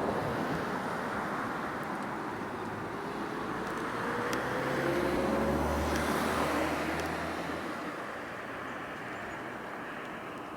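Steady road traffic noise, with a passing vehicle whose engine tone rises slowly and whose low rumble swells around the middle and then eases off.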